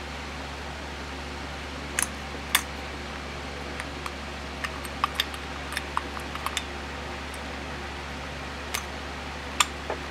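Scattered light clicks and taps of small brake caliper parts being handled, about a dozen spread irregularly, over a steady low hum.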